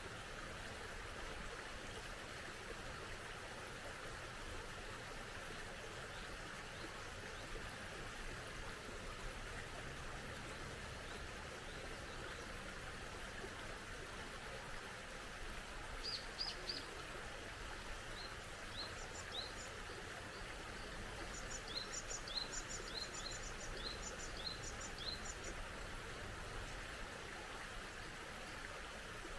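A stream running steadily, with a small bird chirping high and quick about halfway through: three chirps, then a longer run of repeated chirps.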